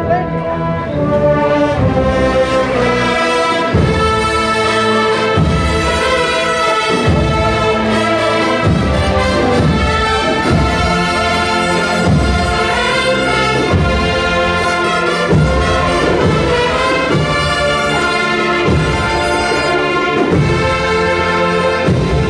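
Agrupación musical, a Spanish processional band of cornets and other brass with drums, playing a processional march with a steady drum beat.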